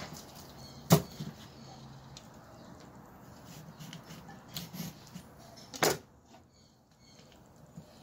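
Knife work on a plastic cutting board while filleting a fish: two sharp knocks, about a second in and again near six seconds in, with quiet slicing between them.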